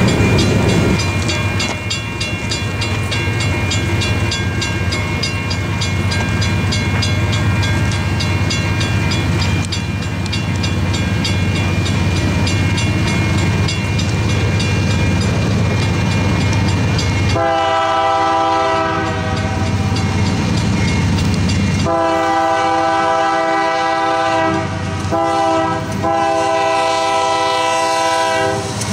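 Grade-crossing bell ringing steadily over the low rumble of an approaching Union Pacific diesel freight locomotive. About two-thirds in, the locomotive's air horn sounds the crossing signal: long, long, short, long.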